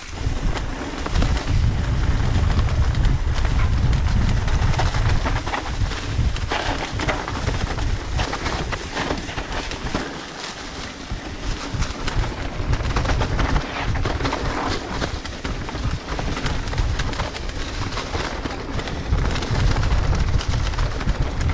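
Mountain bike riding down a forest trail covered in dry leaves. Heavy wind rumble on the camera's microphone, with the tyres rushing and crunching through the leaves and frequent rattles and clicks from the bike over the bumps.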